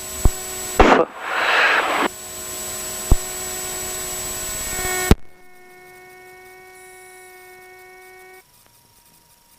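Light aircraft's electrical and audio system during engine shutdown: a steady hiss with a few clicks ends in a sharp click about five seconds in. A steady electrical whine with several overtones follows and stops abruptly about three seconds later, leaving a faint single tone.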